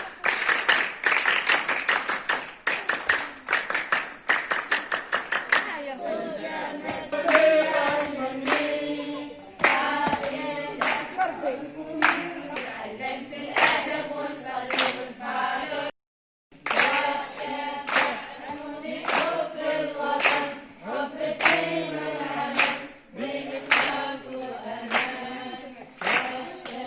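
A burst of fast applause, then a group of scouts singing a chant together unaccompanied while clapping a steady beat. The sound cuts out for a moment about halfway through.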